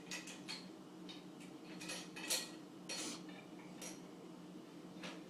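A scattered series of light, irregular clicks and clinks, about eight in all, over a steady low hum.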